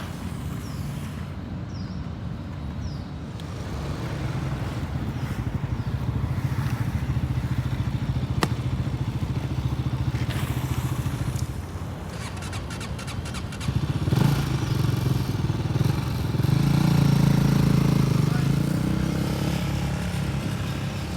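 Inline skate wheels rolling over pavement: a steady low rumble that grows louder twice, with a few sharp clicks and knocks from the skates.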